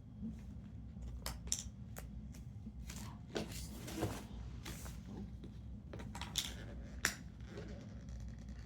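Gift packaging being handled and opened: irregular rustling of paper or plastic and sharp little clicks and snips, over a steady low background hum.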